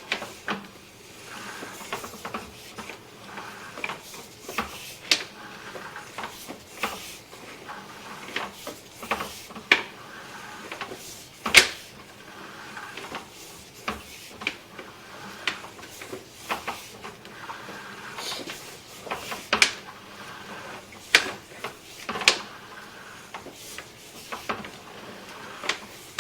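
Sewer inspection push camera being pulled back through a PVC lateral: irregular clicks and knocks from the push cable and reel, one or two a second, over a faint steady hiss.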